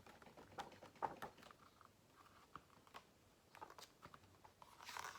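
Faint, irregular taps and rustles of a picture book being shaken and handled.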